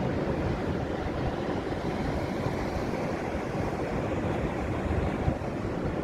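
Ocean surf breaking and washing on a sandy beach, a steady, even roar of waves with wind buffeting the microphone.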